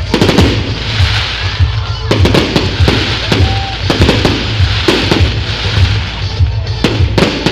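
Aerial fireworks bursting in quick succession, many sharp bangs and crackling, over music with a steady pulsing bass beat.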